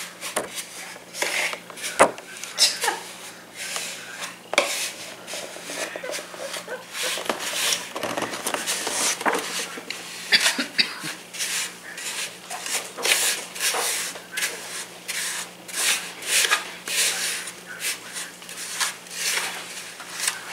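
A spoon stirring and scraping a thick mix of chocolate cookie crumbs and cream cheese in a bowl, in repeated irregular rubbing strokes, with one sharp knock about two seconds in. A steady low hum runs underneath.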